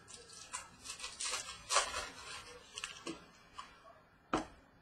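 Trading cards being handled: a run of papery rustles and slides for about three seconds, then a single sharp click near the end.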